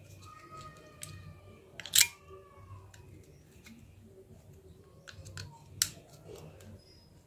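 Small plastic parts of a Nokia 1209 handset clicking as the phone is taken apart by hand. There is a sharp click about two seconds in, another near six seconds, and lighter ticks between them.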